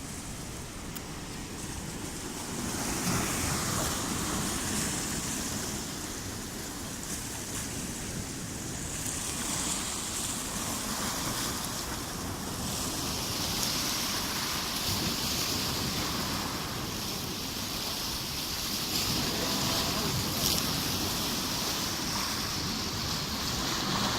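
Sea waves washing in and breaking, with wind rumbling on the microphone; the surf swells and eases every few seconds.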